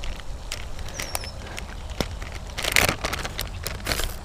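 Plastic bag of KVD Perfect Plastics soft-plastic worms crinkling and rustling as it is torn open and handled. The crinkles come as many quick crackles, with a louder burst about three seconds in and another near the end.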